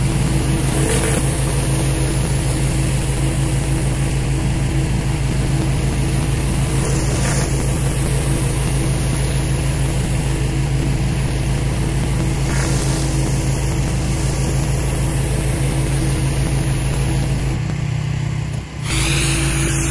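Engine-driven pressure washer running steadily, with the hiss of high-pressure water spray on concrete. Near the end the sound changes briefly and dips for a moment before the steady running returns.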